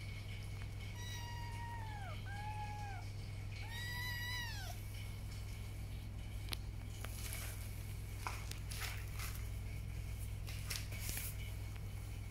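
Young kittens mewing: three high-pitched mews in the first five seconds, the last one the longest. After that come scattered faint clicks and scratchy rustles.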